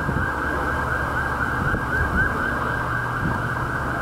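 A siren sounding in a fast yelp, rising and falling about four times a second, over a low rumble of wind and traffic.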